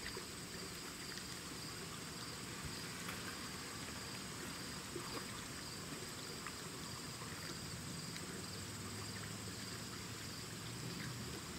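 Steady insect chirring, a thin high buzz that holds unchanged throughout, with a few faint knocks and rustles.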